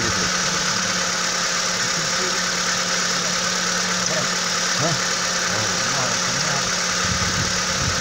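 Kia petrol engine idling steadily, heard close up in the open engine bay; a steady low hum in it drops away near the end.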